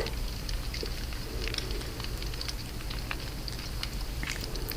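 Crackling fire: a steady soft hiss with scattered small pops and crackles.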